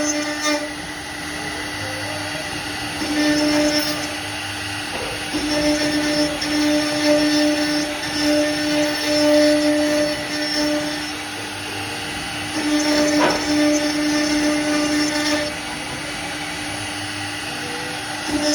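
CNC router spindle running with a steady high whine while the bit cuts wood, growing louder in stretches of a few seconds as it cuts and easing off between them.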